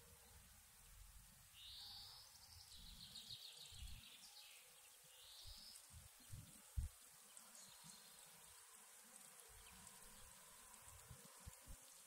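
Faint forest ambience with a small songbird singing: a high phrase ending in a quick trill about two seconds in, a shorter note around the middle, and fainter calls later. A few low thumps stand out, the loudest just before seven seconds in.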